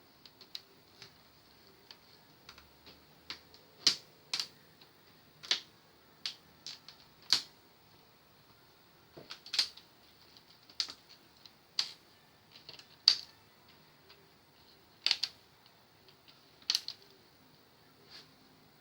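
Irregular sharp clicks and taps of hand work on a flat-screen TV's plastic and metal parts, some single and some in quick pairs, over a faint steady hum.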